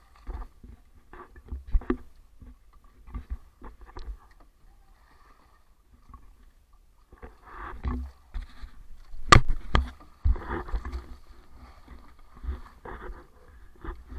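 Irregular knocks, taps and scrapes on a small outrigger boat's hull as a fishing hand line is hauled in by hand, with two sharp clicks about nine seconds in. A low rumble runs underneath.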